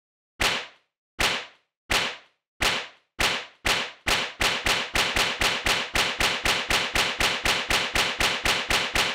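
A sharp slap-like knock, one for each model that appears, repeated over and over and each dying away quickly. It comes under two a second at first and speeds up to about four a second from around halfway through.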